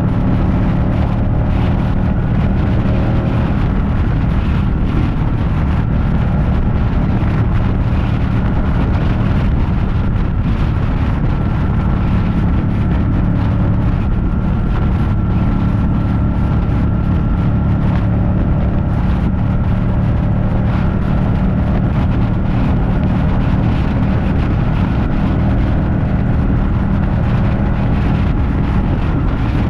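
Ducati Panigale 899's L-twin engine running under way at a steady pitch, with wind rushing over the microphone.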